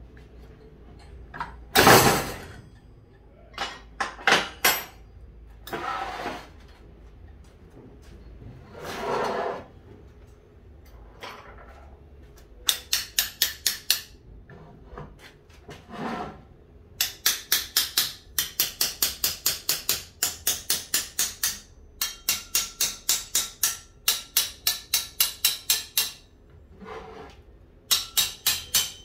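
Metal being worked by hand: a few separate knocks, then long runs of quick, even metallic strikes or scrapes, about five or six a second, some with a faint ring.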